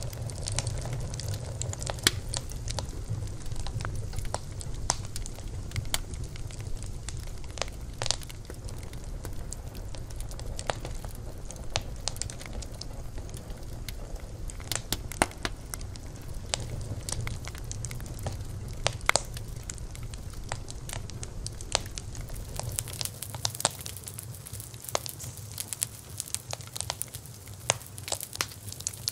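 Wood fire crackling, with irregular sharp pops and snaps over a low steady rumble. About three quarters of the way through, the rumble drops away and a brighter hiss comes up under the pops.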